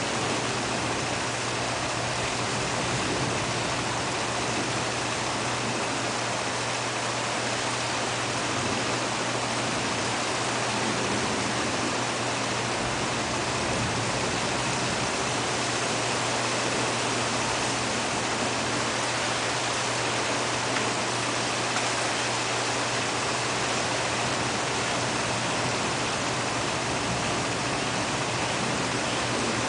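Rain pouring down in a thunderstorm, an even, unbroken hiss at a steady level.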